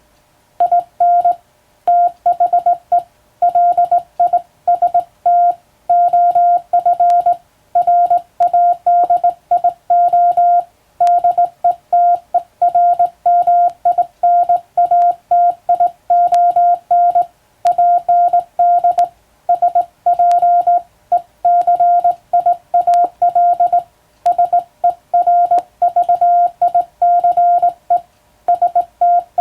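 Morse code sent by hand on a telegraph key, heard as a single steady beep keyed on and off in dots and dashes, with short breaks between letters and a few longer pauses between words.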